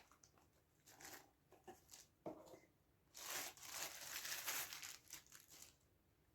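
Faint crinkling and rustling handling noise: a few short rustles, then a longer stretch of crinkling from about three seconds in that lasts some two and a half seconds.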